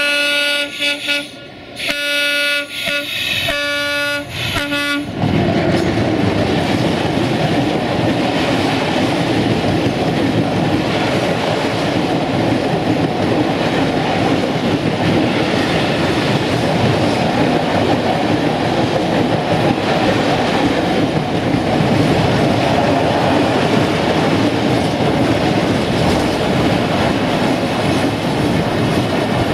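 Romanian 060-DA (LDE 2100) diesel-electric locomotive sounding its horn in several blasts over the first five seconds as it approaches. The locomotive then passes, and a long train of hopper wagons follows, rolling by with a steady, loud rumble of wheels on the rails.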